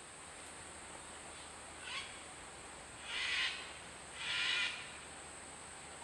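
Bird calling in rainforest: a short hissing call about two seconds in, then two longer hissing calls about a second apart.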